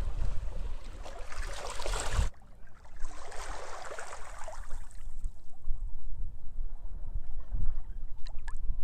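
Sea waves washing onto the shore, with wind buffeting the microphone in low rumbles. One wash cuts off abruptly about two seconds in, a second wave rushes in and fades away, and then mostly the low wind rumble remains.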